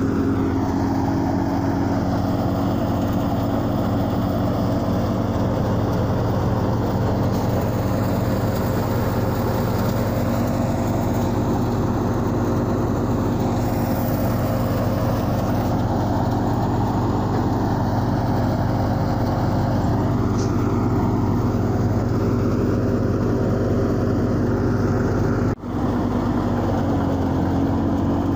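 Tractor engine running steadily, driving a threshing machine that is threshing black chickpeas, with one momentary break in the sound near the end.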